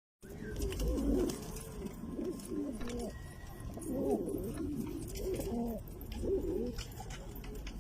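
Domestic pigeons cooing: several low, rising-and-falling coos overlapping one another.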